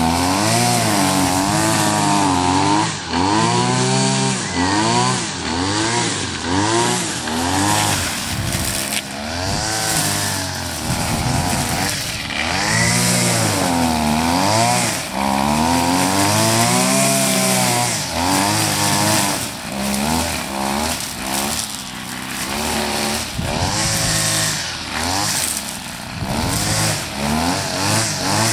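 A small petrol engine being revved up and down over and over, its pitch rising and falling in uneven swells, with short sharp clicks here and there.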